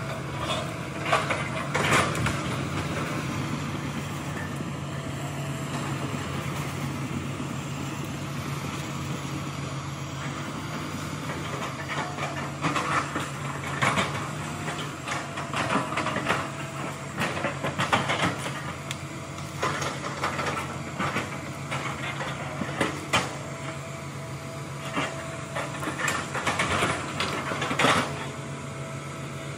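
Hitachi hydraulic excavator's diesel engine running with a steady low hum, which fades somewhat about halfway through. Irregular sharp knocks and cracks break in every second or two as the machine works through felled logs and brush.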